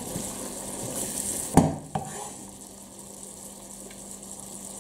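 Zucchini and minced meat sizzling in a nonstick frying pan while being stirred with a wooden spatula. Two sharp knocks come about one and a half and two seconds in, after which the sizzle is fainter.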